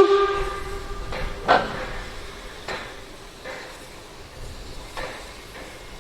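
A sharp metallic clang that rings on at a steady pitch for over a second, a second clang about a second and a half in, then a few fainter knocks.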